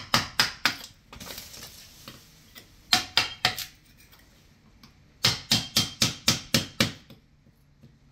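Hammer striking a steel chisel to cut out rotten wooden floorboards, in quick runs of sharp metallic taps at about four a second with a slight ring. There are three runs: one at the start, a short one about three seconds in, and a longer one of about seven strikes around five to seven seconds.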